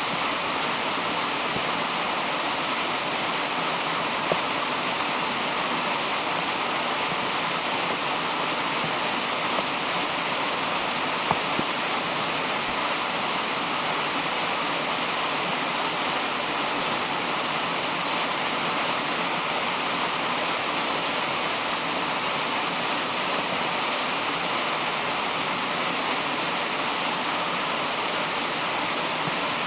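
Steady rush of flowing stream water, unchanging throughout, with a few faint brief ticks.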